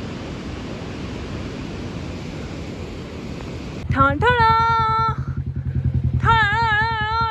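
A steady rushing noise of water jetting from a burst pipe. About four seconds in, a motorcycle engine idles with a low, even throb, and over it a voice sings long held notes, the later one wavering in pitch.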